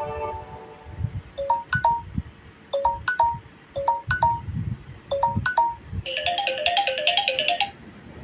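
A Samsung Galaxy J7 Pro ringtone playing: a short electronic phrase of rising notes repeats about every 1.2 s over low thuds. About six seconds in, a quicker run of bright notes takes over and stops just before the end.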